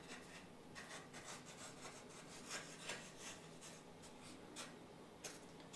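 Faint, irregular scratchy rubbing strokes of a small glue applicator being dabbed and drawn across a foam piece as glue is spread on it.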